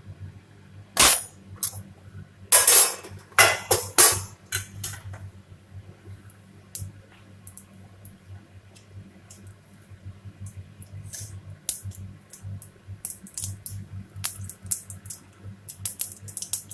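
Mustard seeds crackling and popping in hot oil in a kadai, as they are tempered. The sharp irregular pops come thickest in the first four seconds and then thin out to scattered pops.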